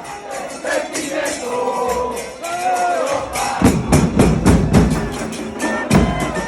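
Football supporters' band with the crowd chanting and singing along; a little past halfway the drums come in loudly with a steady beat.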